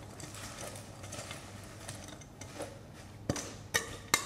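A utensil stirring chopped coriander, onion and garlic in a stainless steel mixing bowl: soft rustling of the greens, then three sharp clinks of metal on the bowl near the end.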